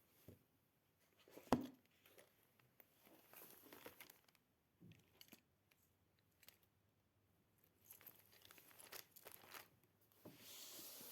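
Faint handling sounds: soft rustling and crinkling with scattered small clicks, a sharp tap about a second and a half in, and a longer rustle near the end.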